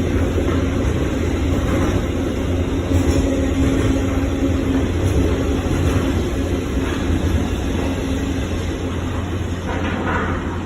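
Freight train running through a station: a steady low rumble, with a held hum that dies away about eight seconds in.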